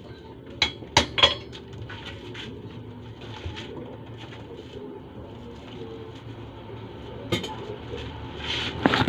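Metal blacksmith's tools clanking against a steel bench vise and each other. Three sharp clinks come close together about a second in, another comes a little after seven seconds, and a couple more come near the end.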